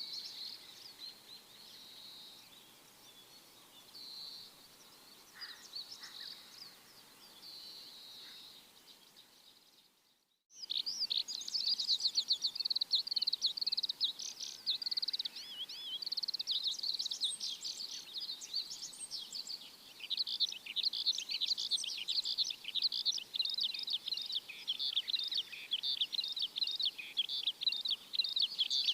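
Songbirds chirping and twittering, a chorus of many quick high notes. The sound drops out briefly about ten seconds in, then comes back louder and denser.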